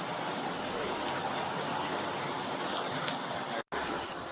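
Steady rushing hiss on a police body camera's audio, with a brief total dropout about three and a half seconds in.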